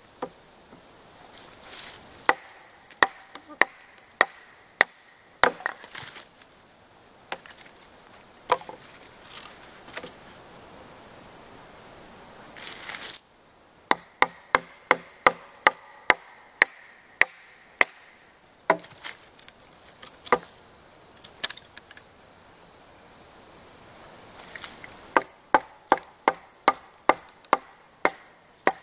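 Ontario kukri blade chopping into a small stick of wood held against a log. The chops come in runs of quick, sharp knocks, two or three a second, with pauses between the runs.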